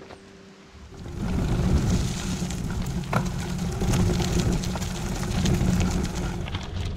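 Riding noise from a bicycle on a dirt and gravel bush track: a loud, continuous rumble of wind on the microphone and tyres rolling over the dirt, with scattered small clicks and rattles, starting about a second in.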